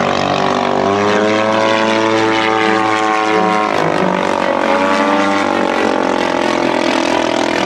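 Propeller-driven aircraft engine droning steadily, its pitch rising about a second in and dropping near four seconds, then swelling and falling once more.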